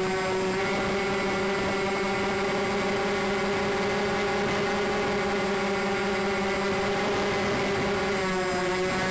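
Motors and propellers of a radio-controlled C-124 Globemaster model, heard from on board in flight: a steady multi-tone drone over rushing air, the pitch dipping slightly near the end as the throttle eases.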